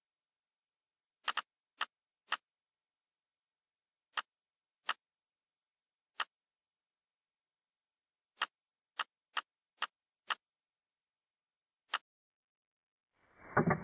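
Computer mouse button clicking: about thirteen sharp, separate clicks at uneven intervals, some in quick runs of two to five. Right at the end comes a short, louder, muffled burst of noise.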